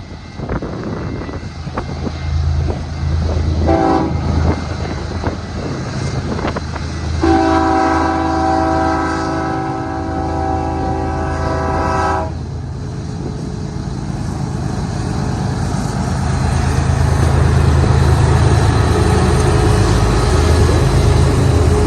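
Diesel freight locomotives approaching with their engines rumbling, growing louder toward the end. The horn sounds a short blast about four seconds in, then a long blast from about seven to twelve seconds.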